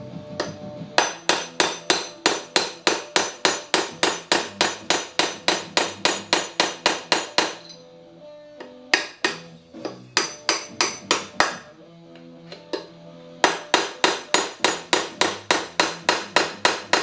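Background music: a guitar strummed in quick, even, percussive chops, about four a second, in runs of several seconds with short breaks.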